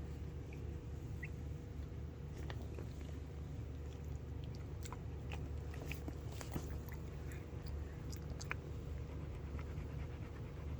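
Scattered small wet smacks and clicks from the mother dog and her newborn puppies, typical of licking, chewing and suckling, over a steady low hum.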